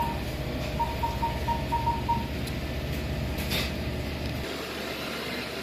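Convenience-store background: a steady low machine hum, with a quick run of high electronic beeps, about four a second, during the first two seconds. The hum drops off about four and a half seconds in.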